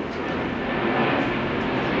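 Steady noise of a passing vehicle, slowly growing louder.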